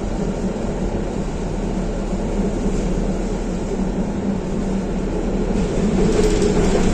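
Inside a moving tram: the steady rumble of the wheels on the rails and the running gear, under a constant low hum. About five and a half seconds in it grows a little louder and hissier, and a higher hum joins it.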